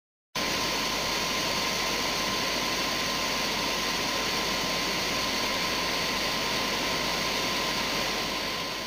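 A steady, loud rushing hiss with a thin high tone running through it, fading out near the end.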